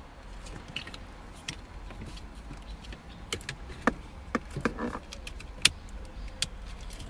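Plastic wiring-harness connectors clicking and rattling as they are handled and pushed together, with sharp separate clicks (the loudest near the end) over a steady low hum.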